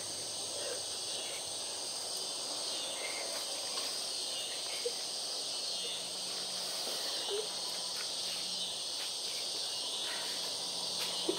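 Steady, high-pitched chorus of night insects trilling without a break.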